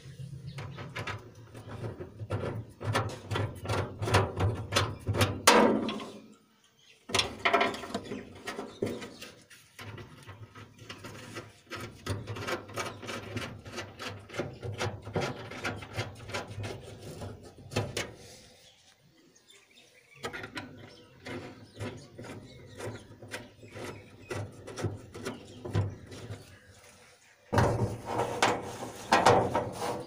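Runs of rapid metal clicks and knocks from a wrench tightening the nuts and bolts that hold a washing machine's plate on, with brief pauses between runs.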